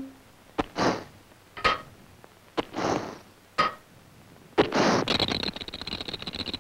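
Cartoon sound effects: an iced-up radiator's valve spits short hissing puffs of steam, each set off by a click or ping, about once a second, then one longer hiss. About five seconds in, a fast glassy rattle starts: false teeth chattering in a drinking glass from the cold.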